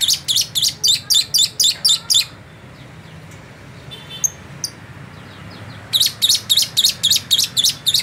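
A lovebird singing a learned ciblek (bar-winged prinia) song: a rapid run of high, sharp chirps at about five a second for two seconds, a pause with a few faint notes, then a second run from about six seconds in.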